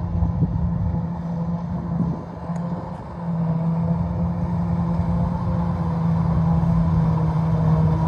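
Claas Jaguar 970 forage harvester running under load while chopping corn for silage, together with the tractor hauling the trailer beside it: a steady droning hum over an uneven low rumble. It dips briefly about two seconds in, then comes back.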